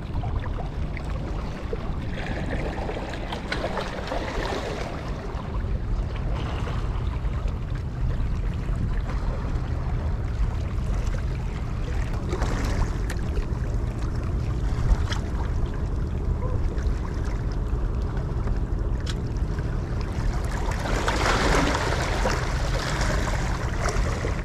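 Small waves lapping and washing against the rocks of a seawall, swelling up every several seconds, over a steady low rumble.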